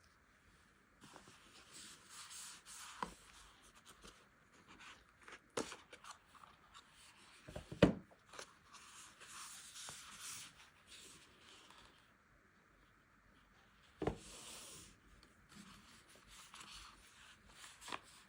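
Hands handling a smartphone and its packaging: intermittent rubbing and rustling with a few sharp taps, the loudest about eight seconds in and another about fourteen seconds in.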